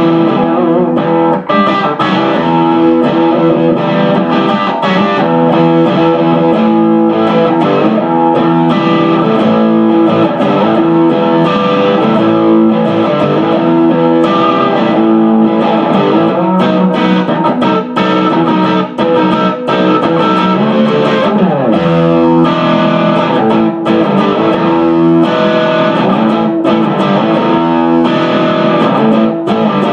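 Electric guitar played through a 1969 Plush P-1000S 100-watt all-tube amplifier with an overdriven tone. The playing is continuous, mixing sustained notes and chords with a few bent notes.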